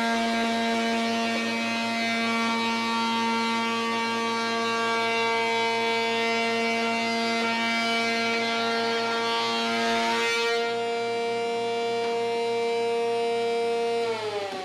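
Minimax spindle shaper with a raised-panel cutter running at about 7,000 RPM, a steady high whine, as a test board is hand-fed through it. The cutting noise builds in the middle and stops sharply about ten seconds in. Near the end the machine is switched off and the whine falls in pitch as the cutter spins down.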